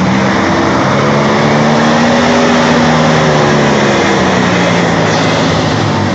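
Jeep Wrangler TJ engine working hard under load as the vehicle tries to climb an off-road obstacle, its pitch rising slowly for a couple of seconds and then easing back down.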